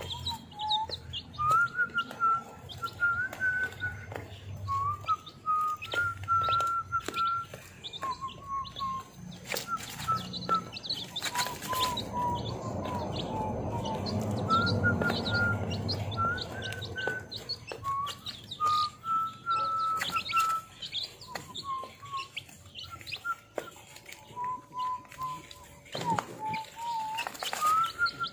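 Week-old chicks peeping while they peck at crumble feed: quick high peeps and small pecking taps throughout. Over them runs a string of short whistled notes that hop between a few pitches.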